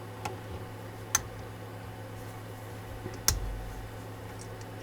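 Three sharp metal clicks of a T25 Torx driver engaging and working the screws on a CNC router's spindle clamp, the third louder with a dull thud, over a steady low hum.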